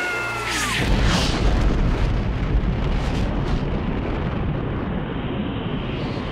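A cartoon character's high scream, cut off less than a second in by a sudden, loud explosion sound effect. The rumbling blast, for a snow cloud bursting into a mushroom shape, goes on for several seconds.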